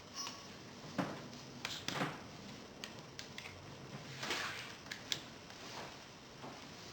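Faint handling noises of a twist grip being slid back onto a bicycle handlebar: scattered light clicks and a few short scuffs, about a second apart.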